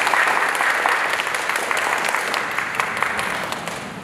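Audience applauding after a bow, dying down toward the end.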